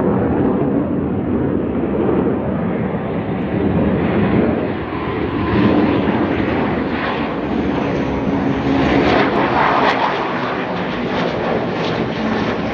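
F-15E Strike Eagle on landing approach with gear down: the steady, loud jet roar of its twin turbofan engines. The sound grows hissier and sharper in the second half as the jet comes closer.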